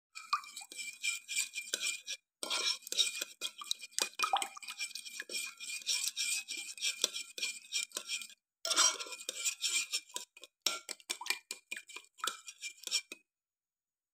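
Metal spoon stirring a thin cake mixture of egg, oil, sugar and milk fast in a glass bowl, scraping and clinking against the glass with a faint ring, to dissolve the sugar. The stirring pauses briefly twice and stops shortly before the end.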